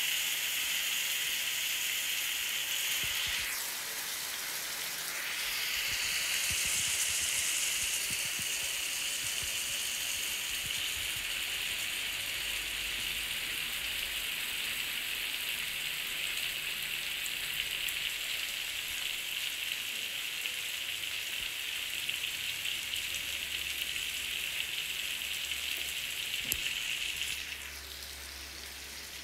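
Tandoori-marinated chicken leg pieces sizzling steadily as they shallow-fry in foaming fat in a non-stick pan. The sizzle dips briefly about four seconds in and turns quieter near the end.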